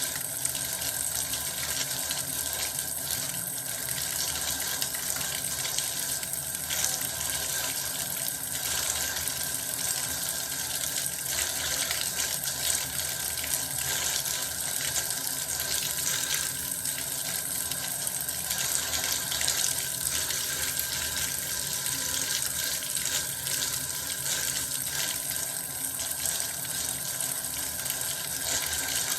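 Bath water running steadily, an even, unbroken rush of water.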